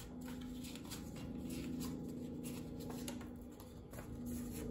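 A deck of cards being shuffled and handled, a card slid out by hand: a run of soft flicks and rustles, over a faint steady hum.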